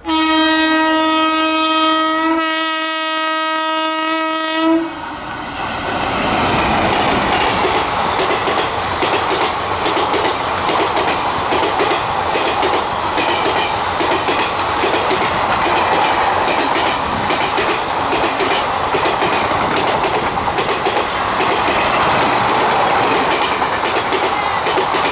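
Indian Railways WAP-4 electric locomotive's horn sounding one long blast of about five seconds, with a slight break about two seconds in. Then the 23-coach express train's wheels clatter steadily over the rail joints as the coaches pass, a running 'tadak tadak' rhythm.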